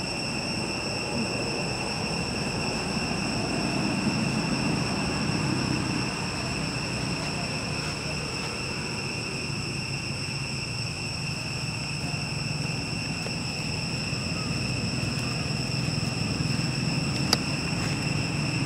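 Steady high-pitched drone of insects, with a low rumble underneath and a single sharp click near the end.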